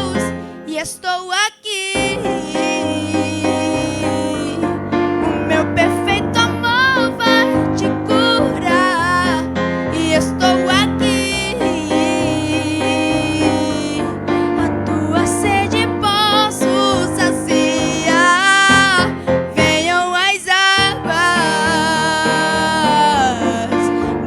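Worship song with piano and keyboard chords under a wavering melodic line, most likely a singing voice without clear words, with a short break about a second and a half in.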